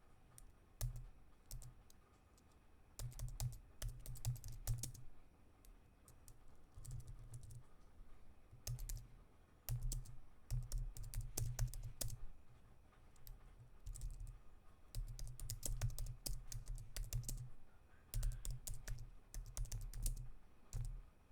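Typing on a computer keyboard: bursts of rapid key clicks a second or two long with short pauses between, each burst carrying dull low thumps.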